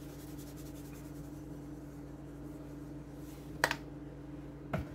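Garlic powder shaken from a spice container into a pot, faint and scratchy. A steady low hum runs underneath, and two sharp clicks come near the end.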